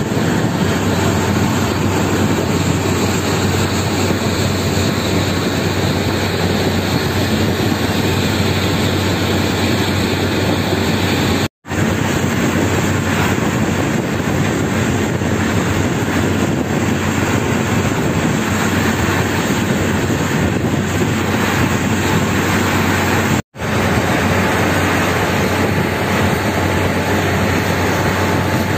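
Steady, loud engine noise from heavy machinery with a low hum underneath, cut off abruptly twice and starting again at once.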